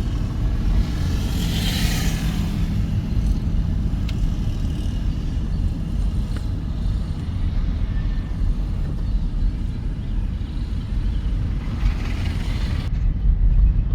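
Road and engine noise of a moving car: a steady low rumble, with a brief swell of hiss about two seconds in and again near the end.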